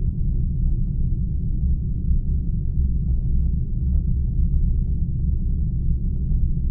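Deep, steady rumble of a sound-designed spaceship drone, with almost all of its weight in the low bass.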